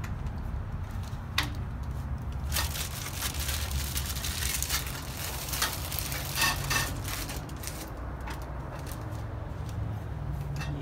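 Greenhouse frame tubes being handled and pushed into their plastic connectors: a run of light clicks, taps and crackles, busiest from about two and a half to seven and a half seconds in, over a steady low rumble.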